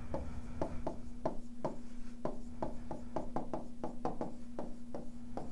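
Stylus writing on a tablet screen: a run of light taps and scratches, several a second, as words are handwritten, over a faint steady hum.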